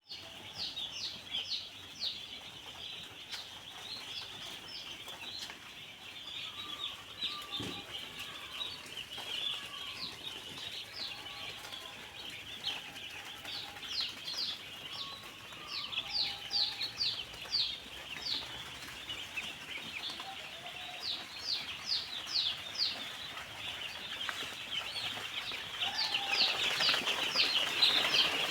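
A flock of young chicks peeping continuously in a brooder: many short, high, falling cheeps overlapping, growing busier and louder near the end.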